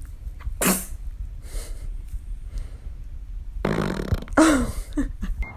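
A baby sneezing twice: a short sharp sneeze just under a second in, and a longer one about four seconds in that ends in a brief voiced sound.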